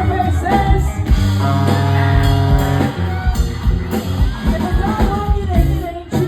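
Rock music with a singing voice over a steady beat, with a chord held for a moment about a second and a half in.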